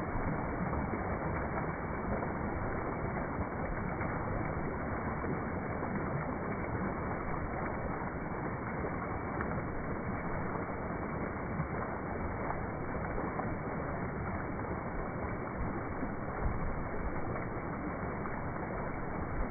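Steady rush of flowing water from a creek or small waterfall, even and unbroken.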